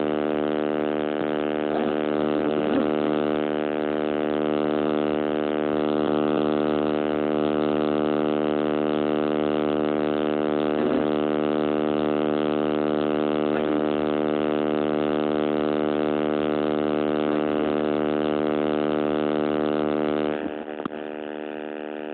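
Loud, steady electrical buzz from a damaged phone microphone, an even pitched drone that masks the scene; it drops in level about 20 seconds in.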